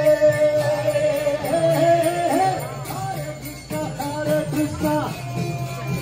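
Background music, a pop song between sung lines: a held, gliding melody over a steady low part, with a light, high percussion beat.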